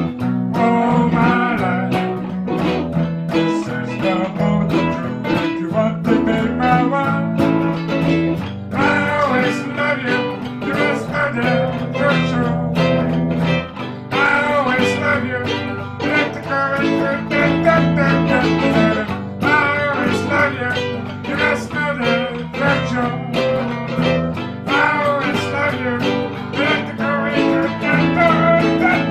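Raw blues song: guitar playing with a low, steady accompaniment and a voice singing in phrases.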